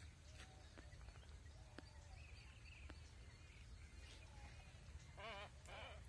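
Faint, quiet ambience with a steady low rumble. About five seconds in, a bird gives three short wavering calls in quick succession.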